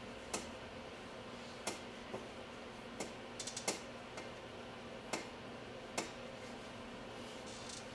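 About ten short, sharp clicks at uneven intervals over a steady faint hum, a few of them bunched together a little past the middle.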